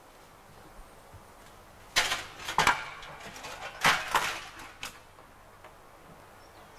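Metal pots and dishes clattering, in two short bursts of knocks and clinks about two and four seconds in, with a last knock soon after.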